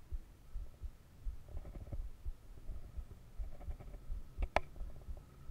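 Low, irregular thumps and rumble on the microphone, with one sharp click about four and a half seconds in.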